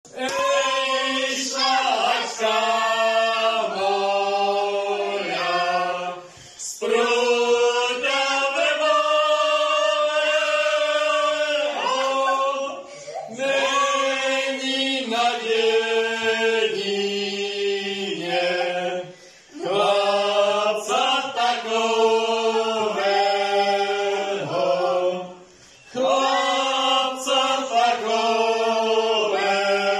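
A group of men and boys singing a Moravian Easter carol together, unaccompanied, in phrases of about six seconds with short breaks for breath between them.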